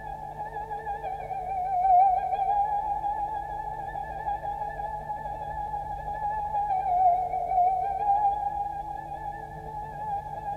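Background music: a long held high note with a steady vibrato that slides slowly down and back up twice.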